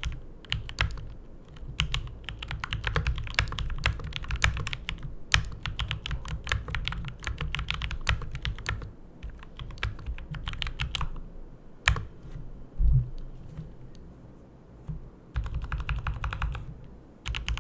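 Typing on a Keychron K2 mechanical keyboard with Gateron Milky Yellow Pro linear switches and an acoustic pad: a steady run of slightly muted, creamy keystrokes without much click or clack. It thins out past the middle, with one louder single stroke and a short lull, then a quick burst of keystrokes near the end.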